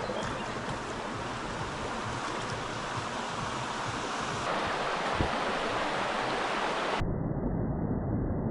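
Steady rush of flowing river water. About seven seconds in it switches abruptly to a duller, deeper rushing noise.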